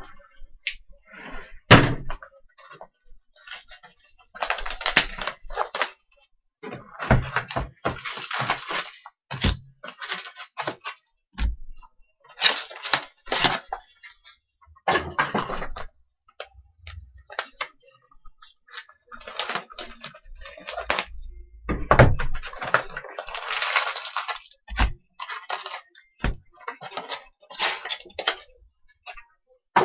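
2013-14 SP Game Used hockey card boxes and packs being opened by hand: cardboard and wrappers tearing and crinkling in irregular bursts of a second or two, with a few sharp knocks in between.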